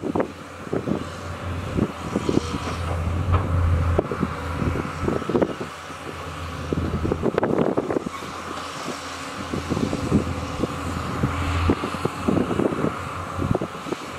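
Diesel engines of several crawler excavators working together, a steady low hum that swells louder now and then under load, with irregular knocks and clanks of the machines at work.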